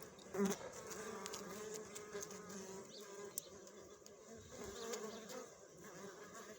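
Bees buzzing: a steady, wavering wing-beat drone, which grows louder for a moment about half a second in as a bee passes close.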